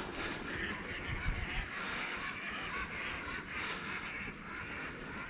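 Geese honking over and over in short calls, over a steady hiss of wind and moving water.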